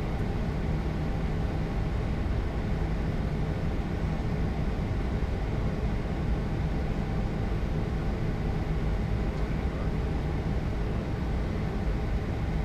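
Steady flight-deck noise of an Airbus A220-300 in flight: a low rumble of airflow and its geared turbofan engines, with a faint steady hum.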